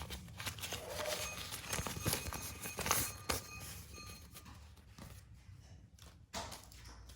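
Plastic snack packets being handled and torn open, with irregular crinkling crackles and light taps that thin out after about five seconds.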